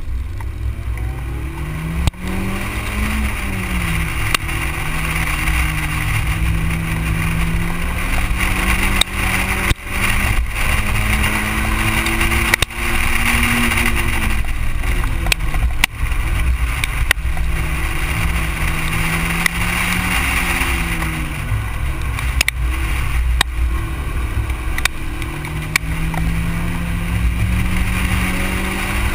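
Toyota Corolla GT-S engine driven hard through an autocross course. Its pitch rises several times as it accelerates and falls back as it lifts off and brakes for the cones. This is heard through heavy wind and tyre noise at a camera mounted low beside the front wheel, with occasional short knocks.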